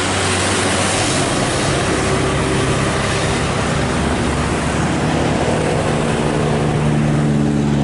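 Diesel tour bus passing close by with tyre and engine noise. The noise thins as it pulls away, and from about five seconds in a steady engine drone comes to the front.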